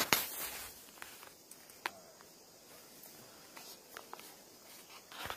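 Footsteps walking through dry brush and leaf litter, with scattered sharp crackles; the loudest crack comes right at the start.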